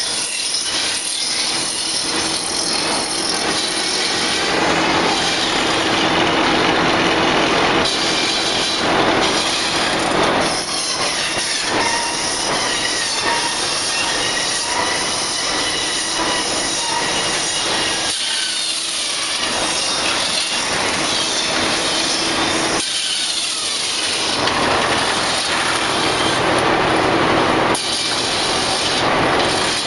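Old belt-driven stave mill machinery running with a steady whine, its saws cutting logs. The cutting noise swells three times, in long stretches.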